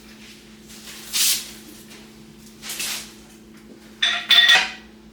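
Steel jack stands being handled and set under the Jeep: two short metal scrapes, then a loud clank with a metallic ring near the end, over a steady low hum.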